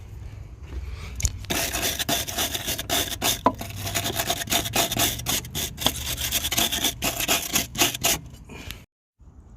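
Brisk, irregular rasping and rubbing strokes against car body metal. They start about a second and a half in and cut off abruptly near the end.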